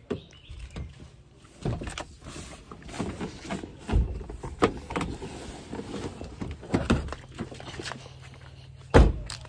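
Car rear door and plastic insulated containers being handled: irregular knocks and clatter as the containers are lifted out of the back seat, with a heavier thud about four seconds in and another near the end.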